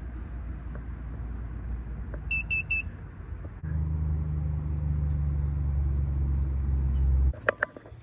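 Three quick high electronic beeps from a digital bathroom scale, over a low outdoor rumble. About a second later a louder steady low hum starts and cuts off suddenly near the end, followed by a few clicks.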